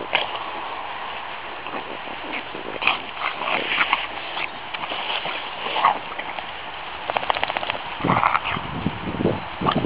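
French bulldog rolling and wriggling in long grass: grass rustling and scuffing under its body, mixed with the dog's snuffling grunts. Busier and louder in quick bursts near the end.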